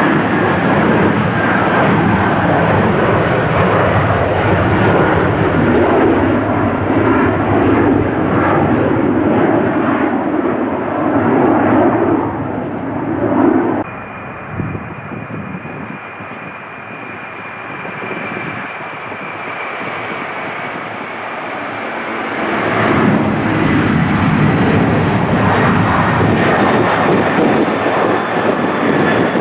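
Boeing 757 jet engines at takeoff power as the airliner climbs out, a faint whine in the noise falling slowly in pitch. After a sudden change about halfway through, a four-engine Boeing 747-400 is heard on its takeoff roll, quieter at first with a steady high whine, its jet noise building loud again for the last several seconds as it lifts off and climbs.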